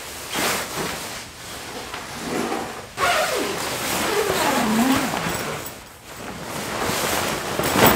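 The large fabric vestibule sheet of a Bereg UP 5 hot tent rustling and dragging as it is pulled and draped over the tent door, with a few squeaky, sliding rubbing sounds in the middle.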